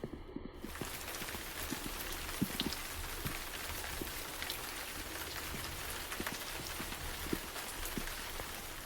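Steady rain falling, with many individual drops tapping on a hard surface.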